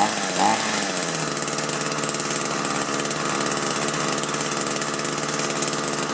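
Echo two-stroke engine blipped up and down twice near the start, then settling to a steady idle. It is running with its fuel tank vent removed, a test of whether a clogged vent was choking it out.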